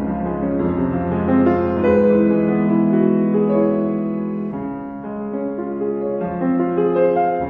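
Background piano music: slow, sustained chords and notes.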